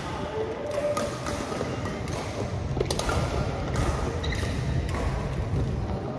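Badminton rally: rackets striking a shuttlecock with several sharp cracks about a second apart, with short sneaker squeaks on the court floor and footfalls.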